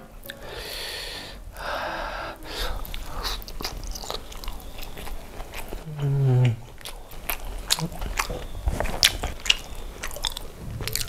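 Close-miked chewing of a last bite of saucy fried chicken, with many short wet clicks and lip smacks. A short hummed "mmm" comes about six seconds in.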